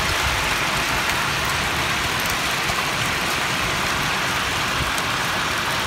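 Steady rain falling: an even hiss with scattered drop ticks, over a low rumble.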